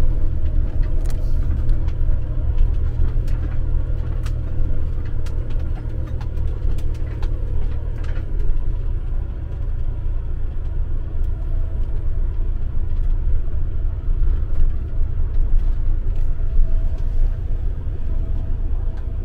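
Steady low engine and road rumble inside the cab of a van-based motorhome driving slowly, with scattered light clicks and rattles.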